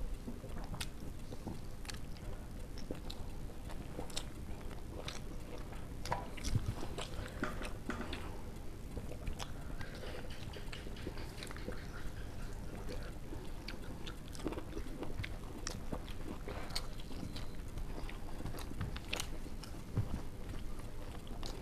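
Eating sounds: chewing and wet mouth clicks and smacks as rice and curry are eaten by hand, scattered irregularly throughout, over a faint steady hum.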